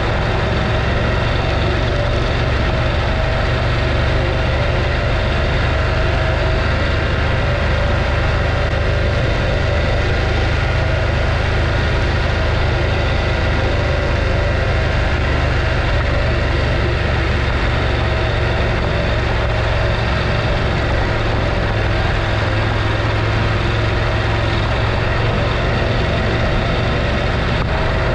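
Adventure motorcycle's engine running at a steady speed while riding, with no revving up or down.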